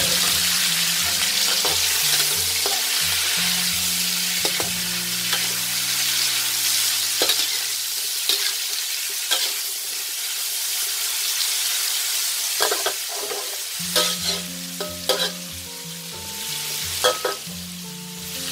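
Pumpkin cubes sizzling in hot oil and garlic in a steel wok, stirred with a metal wok spatula that scrapes and clinks against the pan. The sizzle eases off in the second half, where the spatula's clinks stand out.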